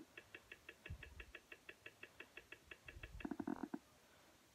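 Faint, even clicking, about six clicks a second, from scrolling across search results on a TV screen. The clicking stops about three seconds in, and a short pitched hum follows for about half a second.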